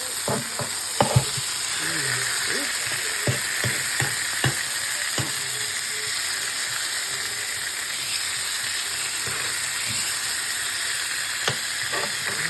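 T-bone steak and onions sizzling steadily on a grill, with sharp clicks and knocks scattered through it, the loudest pair about a second in, as the meat is turned and handled.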